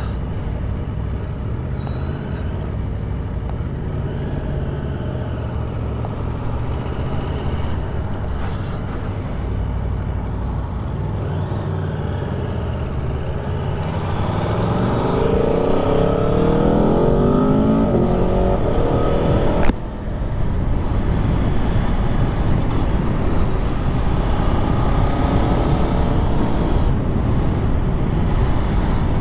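Aprilia Tuono V4 1100's V4 engine running under way, heard from the bike. About fourteen seconds in the engine pitch climbs for several seconds as it accelerates. A sharp click and a brief dip come about twenty seconds in, after which it runs on steadily and a little louder.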